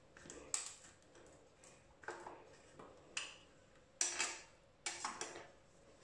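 Skin Magical cosmetic packaging being worked open by hand, the container being hard to open: a string of irregular plastic clicks and small knocks, the sharpest about four seconds in and again about a second later.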